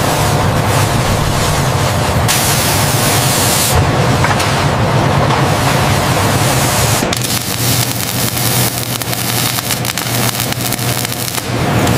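Robotic welding: a steady hiss of spraying sparks over a low machine hum, turning into a crackling arc-welding sizzle about seven seconds in.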